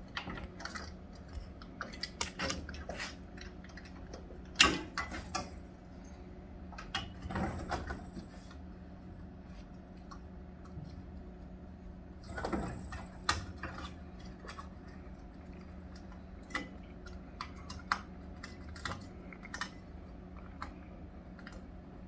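Small clicks, taps and rattles of hands working in a refrigerator's compressor compartment, pushing a start relay onto the compressor terminals, with a few brief louder scrapes of metal parts and cords being moved. A faint steady hum runs underneath.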